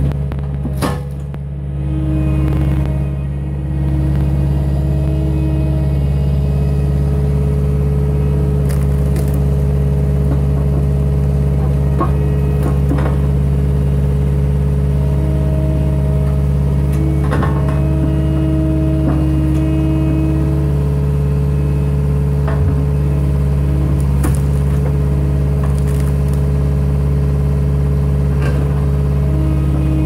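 Cat 262D skid steer's diesel engine running steadily while it powers an inverted hydraulic log splitter. A higher hydraulic whine comes and goes several times as the ram works, with occasional sharp cracks and knocks as oak splits and pieces fall.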